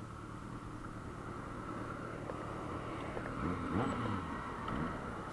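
Yamaha Fazer 600 motorcycle's inline-four engine running under way, its pitch rising and falling about two-thirds of the way through as the throttle is worked.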